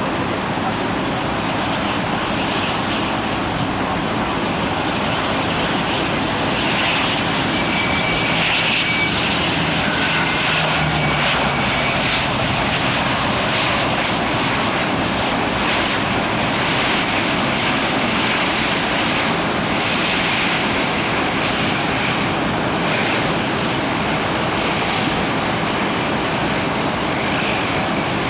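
Airliner engines running under a steady hiss of heavy rain, with the level holding constant throughout.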